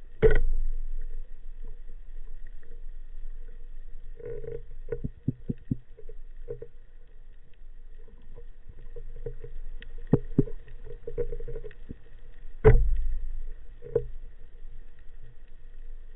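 Muffled knocks, clicks and low thumps picked up by a camera in an underwater housing during a spearfishing dive, with two strong dull thumps, one just after the start and one about three quarters of the way through.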